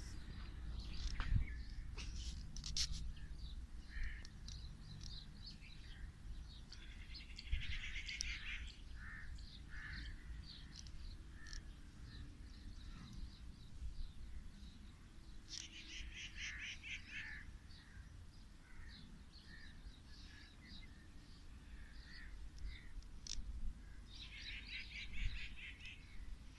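Birds calling outdoors: scattered chirps and calls, with three bursts of rapid chattering calls roughly eight seconds apart, over a steady low rumble.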